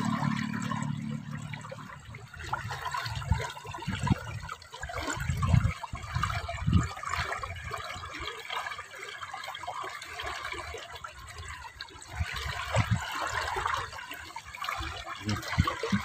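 Water trickling and flowing in a small concrete irrigation channel, a steady splashy hiss. A low hum fades out in the first two seconds, and low thumps come and go on the microphone.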